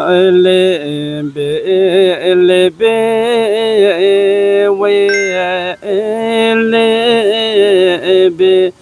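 Solo voice singing a slow traditional song in long, held notes that waver and bend, with short breaks between phrases.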